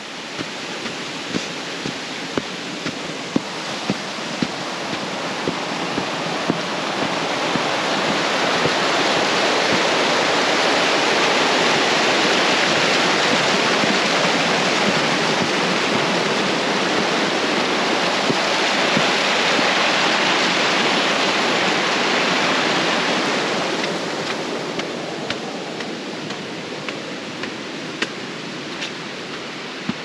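Steady rushing of a waterfall, swelling to its loudest about a third of the way in and easing off toward the end, with faint scattered ticks.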